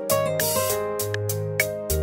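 Instrumental break in a gospel song: keyboard chords held over a bass line, with a light percussion tick about four times a second and no singing.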